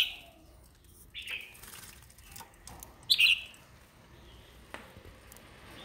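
Caged songbirds chirping: short calls, a small one about a second in and a louder one about three seconds in, with a few faint clicks between them.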